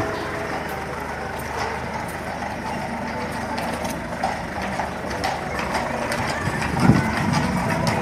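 Horse-drawn carriages passing on a paved street: hooves clip-clopping and carriage wheels rolling, the hoofbeats growing louder in the second half as a pair of horses comes close.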